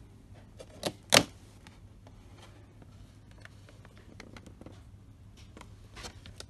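Handling noise: two sharp knocks about a second in, then lighter clicks and rustles, as a hand and a handheld camera move against boxed toys on a shelf.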